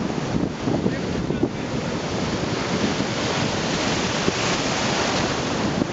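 Ocean surf breaking and washing through the shallows, with wind buffeting the microphone.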